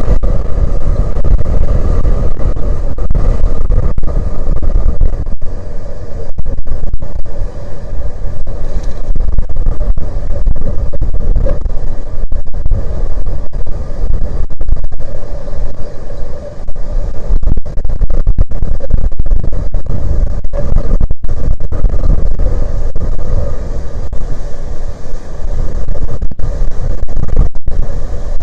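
Strong wind buffeting the microphone: a loud, fluttering rumble that never lets up, with brief dropouts. A faint steady drone runs underneath.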